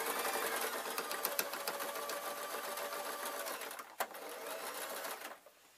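Electric domestic sewing machine running steadily, stitching a seam through thick fur fabric and its lining. A click sounds about four seconds in, after which the machine runs on a little more quietly and stops shortly before the end.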